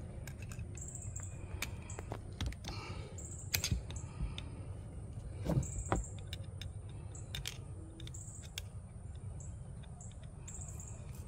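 Flat-head screwdriver turning the screw of a metal hose clamp on a garden-hose mender, giving scattered small clicks as the clamp is tightened to stop a slight leak.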